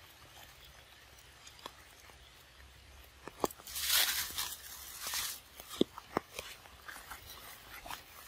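Rustling and crunching of wet grass and leaves as someone moves through the vegetation, with scattered sharp clicks. There are two louder rustling bursts, about four and five seconds in.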